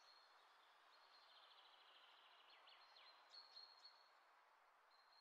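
Near silence: a faint background hiss with faint high bird chirps, trills and a couple of short falling whistles around the middle.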